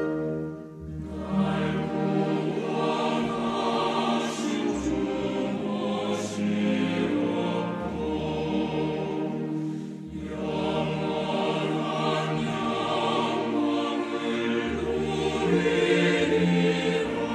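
Background music of a choir singing slow, held chords, with a short break in the phrase about ten seconds in.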